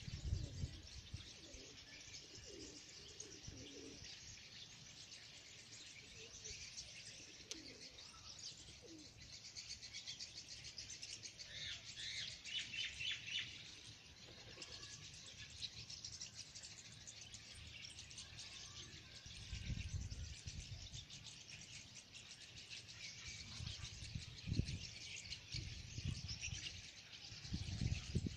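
Small birds chirping and twittering in a steady outdoor chorus, with a louder flurry of chirps about halfway through. A few low rumbles come in during the last third.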